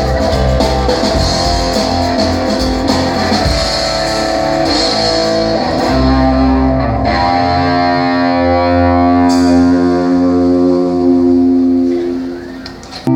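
Rock band playing live on electric guitars, bass and drums: drum strokes under guitar chords in the first half, then long held chords. The music dips in loudness about a second before the end.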